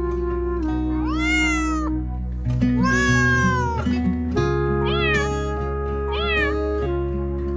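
Cat meowing four times over background music: two drawn-out meows, then two short ones.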